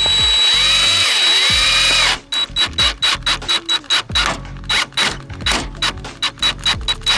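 Handheld power drill/driver running for about two seconds, its motor pitch dipping twice under load, then stopping. Background music with a beat follows.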